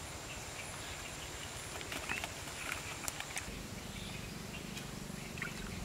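Rural outdoor ambience: birds chirping now and then over a steady high insect drone, with a low rumble underneath that grows a little after the middle.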